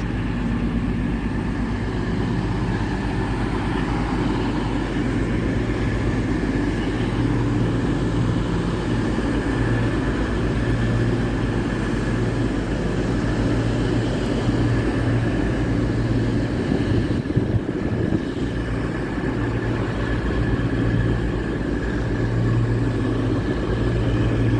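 Class 222 Meridian diesel-electric multiple unit standing with its underfloor diesel engines running steadily. There is a low hum and a steady higher whine, with a brief dip about two-thirds of the way through.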